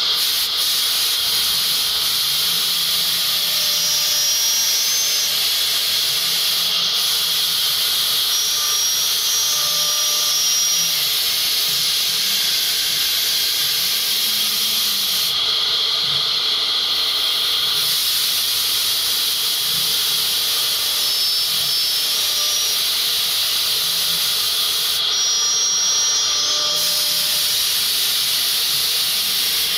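CNC router spindle cutting profile grooves into MDF: a loud, steady hiss of the spinning bit. A low hum under it rises and falls in pitch every couple of seconds as the machine moves.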